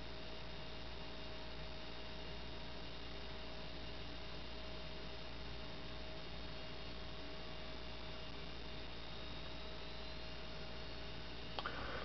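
Microwave oven transformer humming while driven by a pulse-width-modulated circuit: a steady hum with a thin, steady tone above it.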